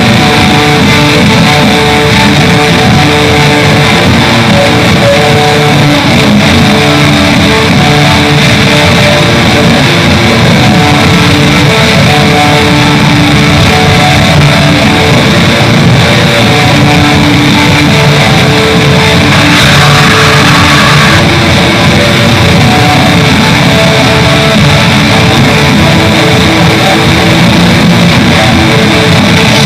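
Raw black metal song: dense distorted electric guitars over bass and drums, a continuous loud wall of sound, with a brief brighter stretch about two thirds of the way through.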